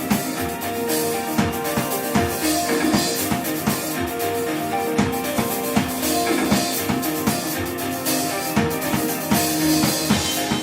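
Live rock band playing a loud, dense instrumental passage: distorted sustained guitar or bass chords over a drum kit keeping a steady beat with kick and snare hits.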